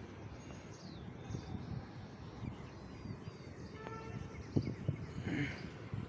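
Outdoor ambience: wind buffeting the microphone in uneven gusts, with scattered bird chirps and a short bird call about four seconds in.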